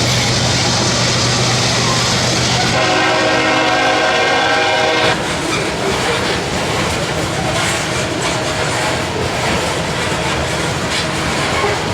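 Diesel freight train passing: the locomotive's engine hums steadily, then its air horn sounds one long blast about three seconds in, lasting a couple of seconds and cutting off sharply. After it, the rumble and clatter of the wheels on the rails.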